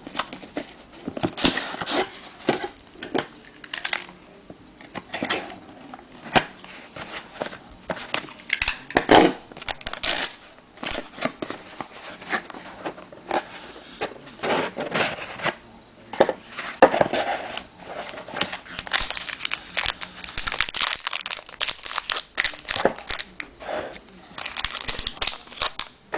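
Plastic and foil wrapping crinkling and tearing in irregular crackly bursts as a factory-sealed trading card box and pack are opened by hand.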